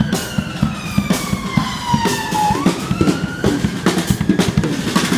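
Drum kit played live: bass drum, snare and cymbal hits in a steady beat. A siren wails over it, sliding down in pitch and then rising again about halfway through.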